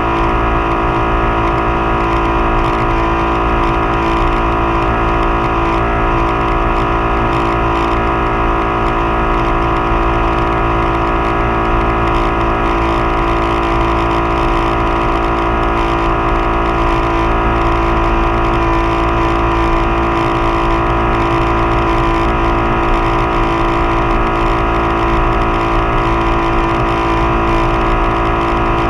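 Tow boat's engine running at a steady towing speed, a constant unchanging drone over the rush of water.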